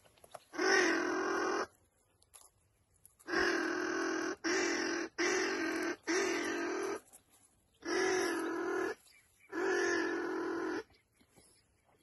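Doble TT duck call blown in seven long, steady notes: one, then a run of four, then two more.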